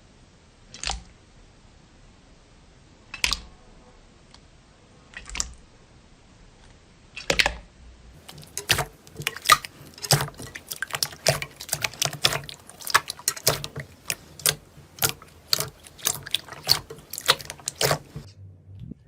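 Slime being pressed and squeezed, giving sharp pops and crackles: a few single pops about two seconds apart, then from about eight seconds a quick run of several pops a second that stops shortly before the end.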